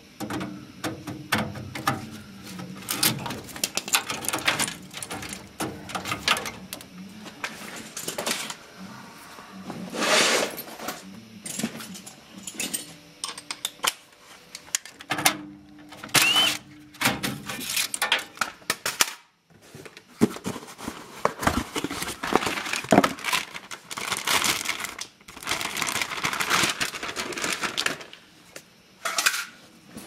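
Wires and quick-connect spade terminals being pulled off a Carrier furnace control board and the board worked loose from its sheet-metal mount: an irregular run of clicks, rattles and rustling of wire and plastic.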